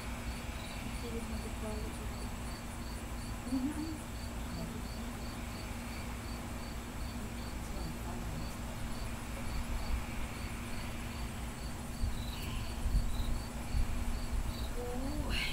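Crickets chirping steadily, short evenly spaced chirps about two or three a second, over a low steady hum.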